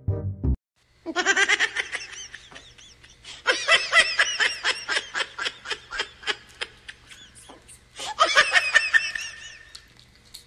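A person laughing in quick, high-pitched bursts of 'ha-ha' pulses, in three bouts with short pauses between them.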